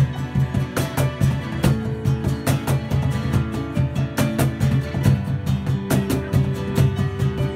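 Live acoustic band playing: acoustic guitar strummed, keyboard piano holding notes, and a cajon struck for the beat.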